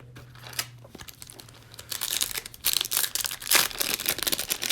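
Foil trading-card pack wrapper being crinkled and torn open, a dense crackling that builds up about two seconds in.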